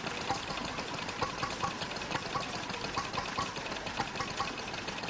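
Vintage stationary engine running slowly, with sharp knocks coming at uneven intervals over a steady mechanical clatter.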